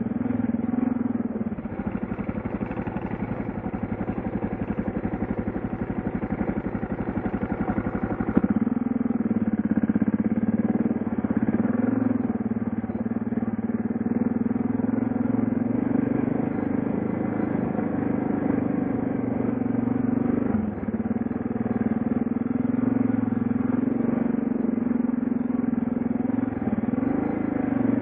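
Suzuki DR650's single-cylinder four-stroke engine running as the bike rides along a trail. It runs lower and evenly for the first eight seconds, then steps up louder with the throttle rising and falling.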